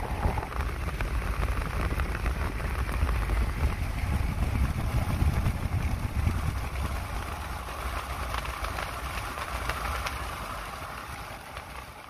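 Steady low rumble with hiss, fading out near the end.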